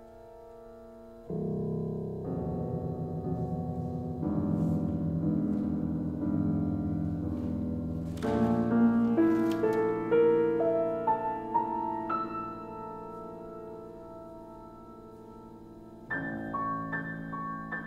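Solo piano playing. A low chord enters about a second in and builds into fuller chords, then higher single notes trace a short melodic line and die away, and a repeated high figure starts near the end.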